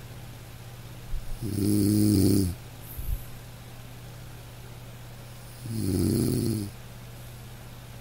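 A man snoring in deep sleep: two snores, each about a second long and about four seconds apart, over a steady low hum.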